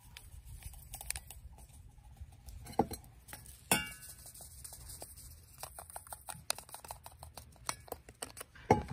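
Hot chocolate being made in a stainless steel camp mug: packets rustle and small taps and clicks sound against the mug, with one sharp metallic clink that rings briefly a little under four seconds in and another sharp knock near the end.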